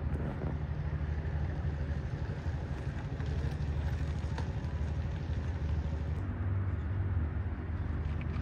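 Steady low rumble of motor vehicles running, with no sudden events.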